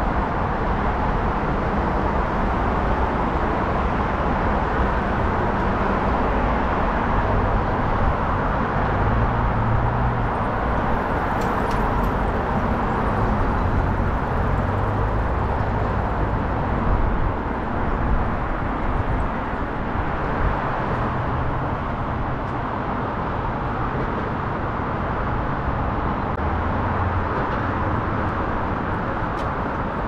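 City street ambience: a steady wash of traffic noise, with the low hum of passing vehicle engines rising out of it several times.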